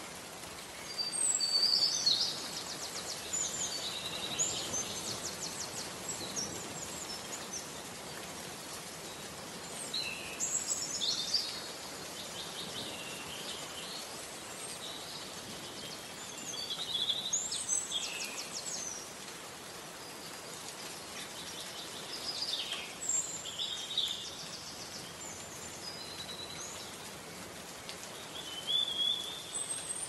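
Steady rain hiss with songbirds singing over it: five phrases of quick whistled notes and fast trills, one every five or six seconds.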